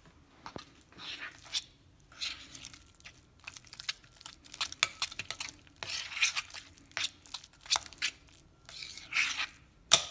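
Metal spoon mixing soft creamed butter in a glass bowl: irregular scraping and squishing strokes, with sharp clicks as the spoon strikes the glass, the loudest near the end.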